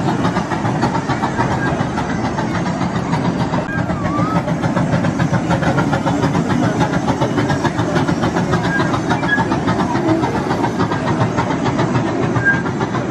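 Miniature zoo train rolling past at close range across a wooden trestle bridge: the locomotive's engine running and the passenger cars rumbling and clattering on the track, with a few faint chirps above it.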